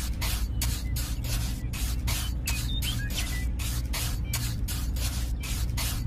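Rhythmic hissing scrapes, about three to four a second, over a steady low hum.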